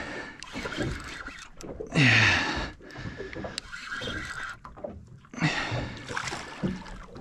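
Water lapping and splashing against a small boat's hull, with scattered light clicks and short murmured voice sounds about two seconds in and again near the end.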